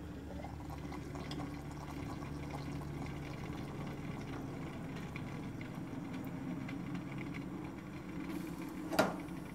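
Aluminium stovetop moka pot bubbling and hissing steadily as brewed coffee spurts up into its top chamber, the sign that the brew is nearly done. A single sharp clack comes near the end.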